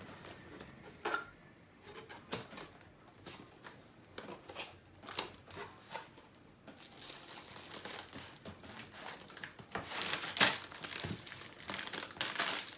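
Packaging being handled: crinkling and rustling with scattered clicks and knocks, getting busier and louder in the second half.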